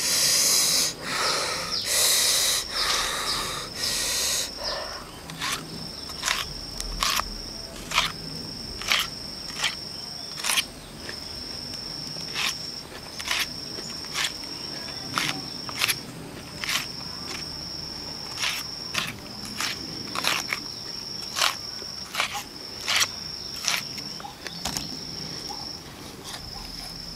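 Hissing breaths about once a second for the first few seconds, the man blowing against the chili heat, then crunchy chewing of raw red onion, a crisp crunch every second or so. An insect buzzes steadily in high phrases about a second long.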